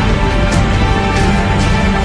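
Loud background music: sustained chords with percussion hits.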